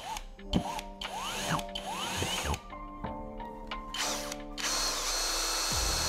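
Electric drill-driver running in several short bursts, its whine rising each time it spins up, then a longer run near the end.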